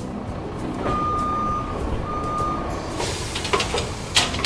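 Dubbed dump truck sound effects: a truck engine rumbling low, two reversing beeps, then a hiss and sharp clattering knocks as the tipper bed raises and the load tips out, the last knock the loudest.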